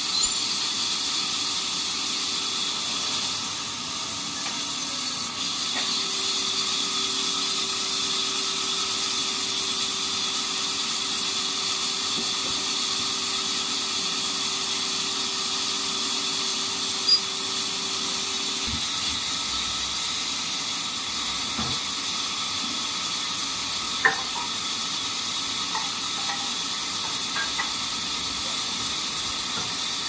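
Band sawmill running without cutting: a steady hiss, with a faint hum that stops partway through. Two sharp knocks come in the second half.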